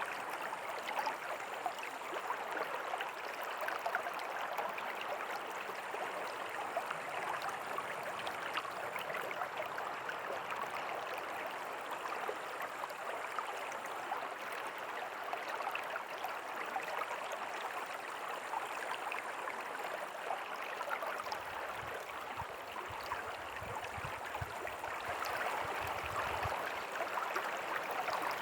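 River water flowing steadily, an even rushing and babbling. Some faint low rumbling comes in about three-quarters of the way through.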